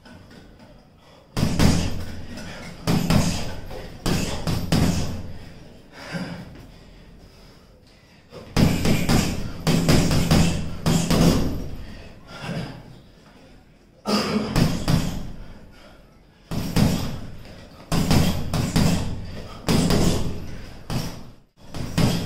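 Boxing gloves punching a hanging heavy bag: quick clusters of several solid thuds, each flurry followed by a pause of a second or more before the next.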